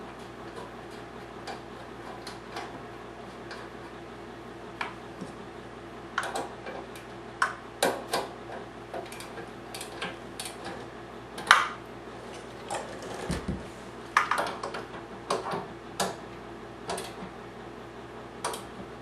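Scattered clicks and knocks of small plastic and metal parts being handled as the fuel sediment cup and its seal are fitted back onto the fuel valve of a Honda 3000c generator. The clicks are sparse at first and come thicker from about a third of the way in, with the sharpest about halfway and a dull thump a little after it.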